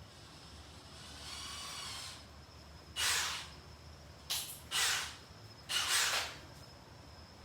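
A brief faint squeaky whine, then four short bursts of hissing air about a second apart.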